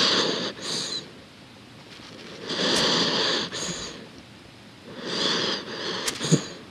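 A sleeping dog breathing noisily, three breaths about two and a half seconds apart, each a longer draw followed by a short one. The last breath ends with a couple of small clicks.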